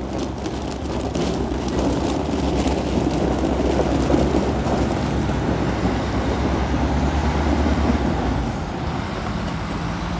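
Volvo A40D articulated dump truck's six-cylinder diesel engine running steadily as the truck drives, with the rumble and crunch of its large tyres rolling over gravel. The sound eases off a little after about eight seconds.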